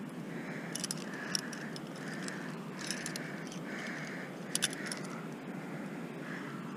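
Metal climbing gear clinking and jangling: a cam and carabiners on the harness rack are handled as a piece of protection is taken off to place in a crack, with a few sharp metallic clinks over a steady hiss.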